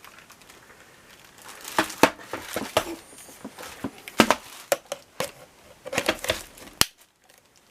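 Plastic parts of a cordless stick vacuum cleaner being handled and fitted together: a series of clicks and knocks with some crinkling, ending in a sharp click. The motor is not running.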